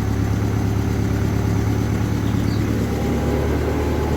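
Car engine running steadily at low speed, its note dropping slightly about three seconds in.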